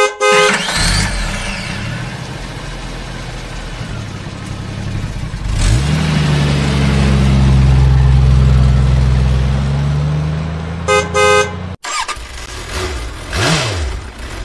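A vehicle horn sounds briefly, then a big engine runs steadily, rising in pitch about five and a half seconds in and holding there. Near the end come two short horn toots before the engine sound cuts off suddenly.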